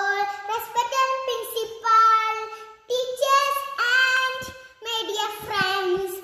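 A young girl singing solo, holding long steady notes in three phrases with short pauses about three and five seconds in.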